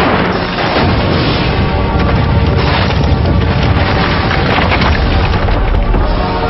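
Animated action-cartoon soundtrack: a loud, dense wash of noisy sound effects with music faintly underneath.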